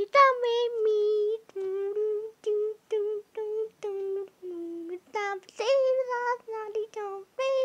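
A high voice singing a wordless tune in a run of short notes at much the same pitch, about two or three a second, played from a television.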